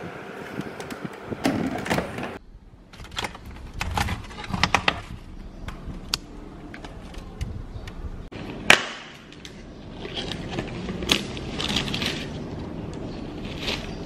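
Kitchen handling noises: a run of clicks and knocks as a fluted metal tart tin is set on a metal baking tray and a plastic strawberry clamshell is handled. One sharp click, the loudest, comes about nine seconds in.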